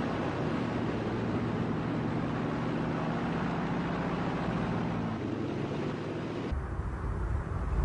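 Steady droning of propeller aircraft engines under a rushing, wind-like noise. About six and a half seconds in, it cuts to a deeper rumble.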